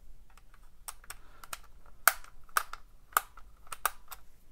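Small, sharp plastic clicks and ticks at irregular intervals from the screws and battery cover of a Propel battle-drone remote controller being worked open by hand.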